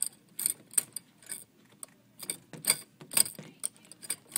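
Irregular run of sharp mechanical clicks and rattles, a few a second, close to the microphone.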